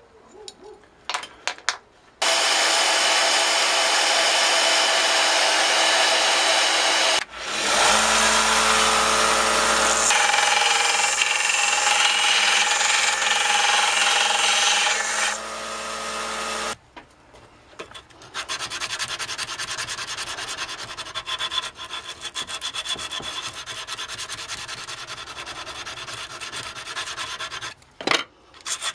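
A bench belt sander grinding the steel kickstand foot, running for about fifteen seconds with a short break about seven seconds in. Then a hand file rasping back and forth on the steel in quick, even strokes for about ten seconds.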